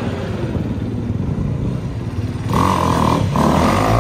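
Four-stroke single-cylinder Honda 250 dirt bike engine running at low throttle, then opened up hard about two and a half seconds in, with a brief break near three seconds before it revs on. The rear wheel spins as the bike lifts into a wheelie.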